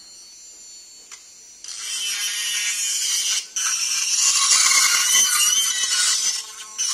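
Electric micromotor grinder with a small burr bit grinding metal inside the barrel slot of a tobacco-rolling machine, taking off the burr. The motor whines faintly at first; about one and a half seconds in a high rasping grind starts, breaks off briefly in the middle and again near the end.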